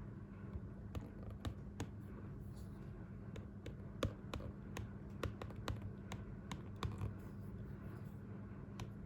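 Typing on a compact Bluetooth keyboard: a run of irregular key clicks and taps, with a low steady hum underneath.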